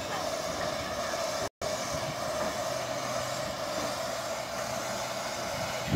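Miniature narrow-gauge steam locomotive running slowly onto a turntable, a steady hiss with a low hum underneath. The sound cuts out for a split second about one and a half seconds in.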